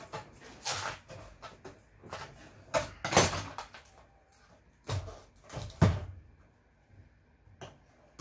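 Irregular knocks and clunks of metal parts and casing being handled while dismantling scrap electronic equipment. The loudest come about three seconds in and again about six seconds in, and a quiet spell near the end is broken by one click.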